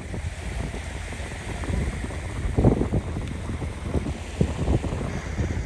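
Wind buffeting the microphone in a steady low rumble, with a few dull knocks, the strongest a little over two and a half seconds in and another about four and a half seconds in.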